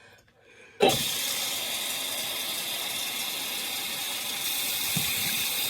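Tap water running steadily into a sink, turned on suddenly about a second in.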